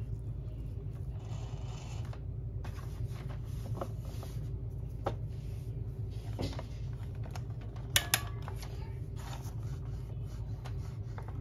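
Hands handling the opened plastic brush-roll housing of a Hoover upright vacuum, making scattered light plastic clicks and knocks. Two sharp clicks come close together about eight seconds in.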